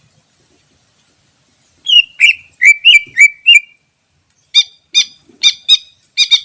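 Leafbird (cucak ijo) singing: a quick run of about six loud, swooping whistled notes, then after a short pause a series of about seven sharp, clipped chirps.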